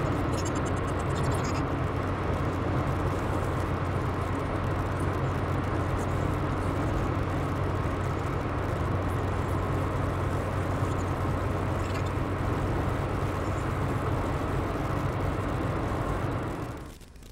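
Steady engine and tyre noise of a moving car heard from inside the cabin, a low hum under an even rumble. It fades out near the end.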